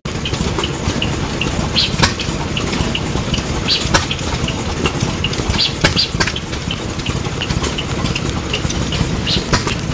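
Massey Ferguson 35 petrol/TVO tractor's four-cylinder engine idling steadily. A light tick comes about three times a second over the low running, with a few sharper clicks.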